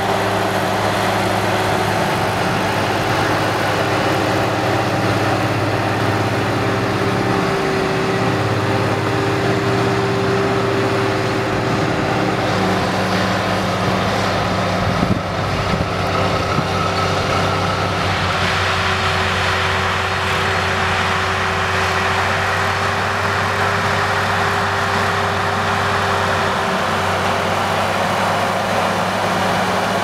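Schlüter tractor's diesel engine running steadily under load while it pulls a tillage implement through stubble. The note holds throughout, with the sound changing character about two-thirds in.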